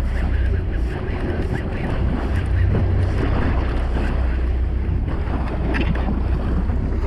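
Wind buffeting the microphone aboard a fishing boat at sea: a steady low rumble with waves and water noise around the hull.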